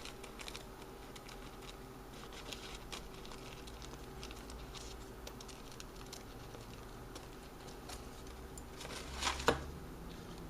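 Faint scattered ticks and light rustling of hands handling and fitting small pieces of coffee-filter paper onto a speaker cone, with one louder sharp knock near the end.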